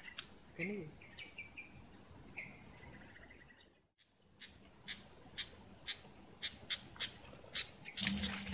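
Insects trilling in a steady high-pitched drone, with short bird chirps in the first half and a run of sharp, irregular clicks in the second half. A louder burst of noise comes near the end.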